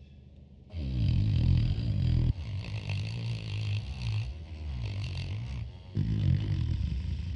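Small rotary tool spinning a wire wheel brush against a camera's metal top cover, scrubbing off dirt and rust. It starts about a second in and varies in strength as it runs.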